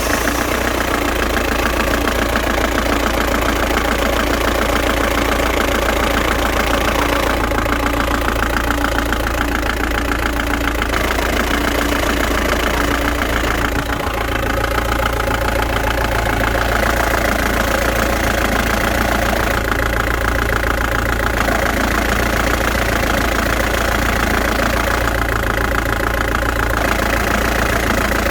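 1997 Ford Transit van's engine idling with a rhythmic knock and vibration that seems to come from the clutch. The knock, heard with the clutch engaged, is suspected to come from the clutch disc rather than the release bearing. The sound changes abruptly every few seconds.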